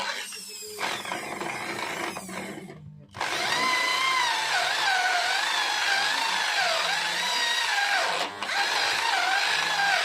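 Handheld electric power tool cutting into wood for carving, starting about three seconds in. Its motor whine repeatedly dips and recovers in pitch as the bit bites into the wood.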